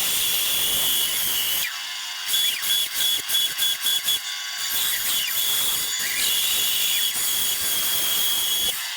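Bandsaw running and cutting through a wooden block, making relief cuts up to a curved line: a steady high whine over hiss, with short dips about two seconds in and again about four seconds in.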